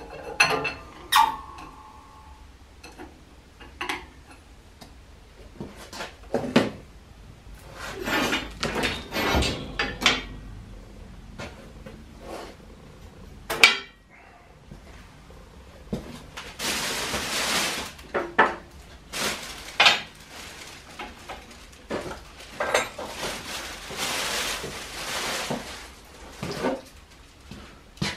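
Steel pins and die clinking and clanking against the frame of a 12-ton hydraulic pipe bender as they are pulled and reset, with one loud clank about halfway through and a few stretches of metal scraping in the second half.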